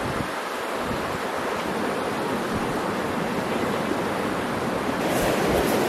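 Steady rush of the Shoshone River's flowing water, growing a little louder near the end.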